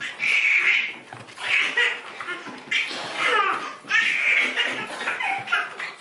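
Hearty laughter in about five loud bouts, each under a second long.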